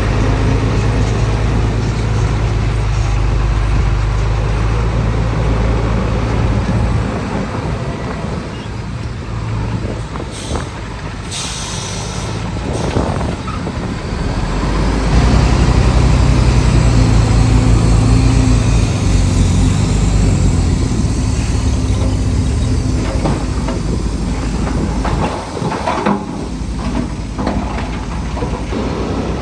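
Heavy diesel engine of earthmoving machinery working under load. It eases off partway through, with a short hiss like air being released, then works hard again and louder.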